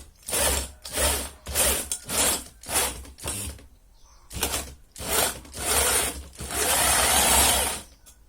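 An electric drill driving a crab grinder, run in about ten short bursts and then one longer run near the end, with a grinding, crunching noise as the crabs are crushed.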